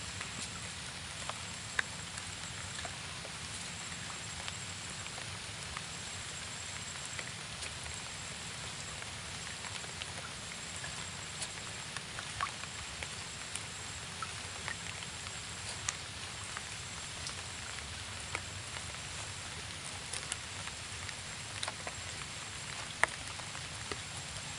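Light rain falling on the river surface and the wooden boat: a steady hiss with scattered drop ticks. A thin high tone repeats in short, evenly spaced bursts over it.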